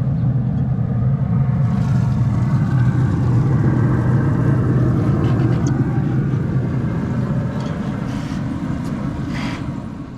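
A motor running with a steady low hum that fades out near the end.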